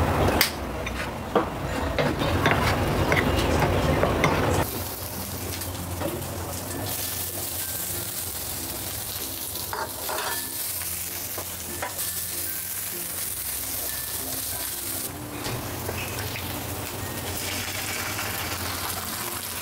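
Chopped garlic and shallots sizzling in hot oil in a wok, stirred with a nylon spatula, with a steady hiss and occasional scrapes and knocks. The first four seconds or so hold a louder, rougher handling and scraping noise before the sizzle takes over.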